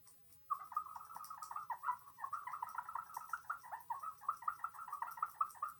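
A Kinder Surprise egg capsule with a hole cut in it, on a string, whistling: a rapid, fluttering chirp that sounds like a bird. It starts about half a second in.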